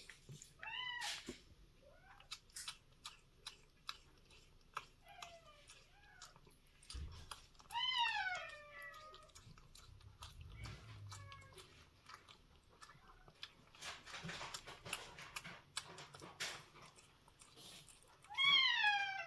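A cat eating soft wet food from a bowl, with quick wet chewing clicks throughout. A cat meows loudly three times, each call falling in pitch: about a second in, around the middle, and near the end, with a few fainter short calls in between.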